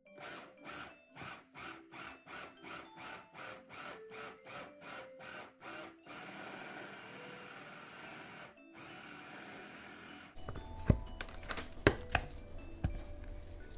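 Electric food processor pulsed in quick short bursts, about three a second, then run continuously for a few seconds with one brief stop. A few knocks follow near the end.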